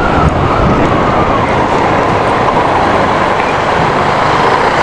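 Steady rushing wind and road noise while riding a Yamaha NMAX 155 scooter at low speed, with the scooter running underneath at an even pace.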